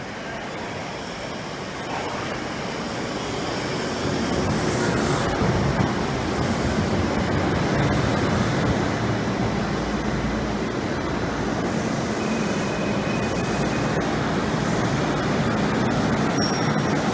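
Tokyo Metro Marunouchi Line 02 series subway train pulling into an underground station: a steady rumble that swells about four seconds in as the train enters, then holds as the cars run along the platform and slow. A couple of brief faint high squeals come near the end.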